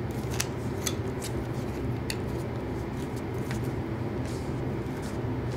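Scattered light clicks and taps of plastic parts being handled as the red adapter ring is twisted onto a handheld solder paste dispenser's body, over a steady low room hum.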